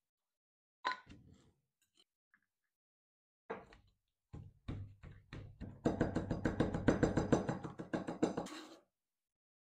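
Chef's knife chopping capers on a plastic cutting board: a sharp knock about a second in, a few separate strikes, then quick, even chopping strokes at roughly six a second for the last few seconds before stopping.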